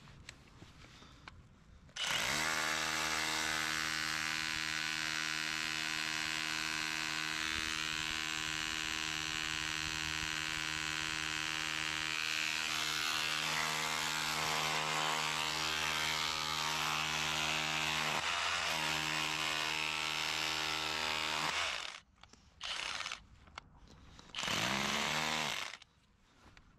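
A motor-driven machine, most like a small power tool or engine, starts about two seconds in and runs steadily at one pitch for about twenty seconds, dipping briefly near the end before it stops. Two short runs follow.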